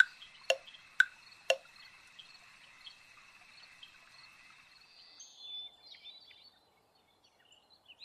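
Clock-like ticking, sharp ticks two a second, stopping about a second and a half in. Then faint night ambience of crickets trilling steadily, with a few brief chirps about five seconds in.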